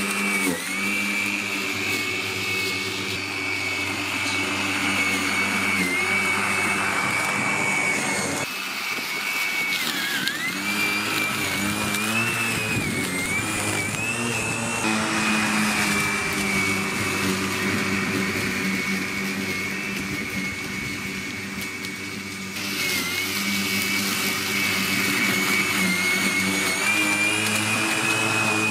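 Parkside PRMA 40-Li C1 40 V brushless cordless lawn mower running and cutting grass in its automatic speed mode: a steady high motor-and-blade whine that dips briefly in pitch a few times.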